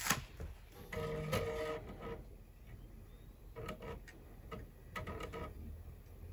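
Editing sound effects: short clusters of sharp clicks and ticks, one near the start and others about three and a half and five seconds in, with a brief pitched tone of several notes about a second in.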